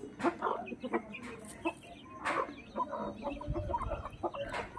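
Chickens clucking in short low calls while pecking grain off concrete, with frequent sharp beak taps.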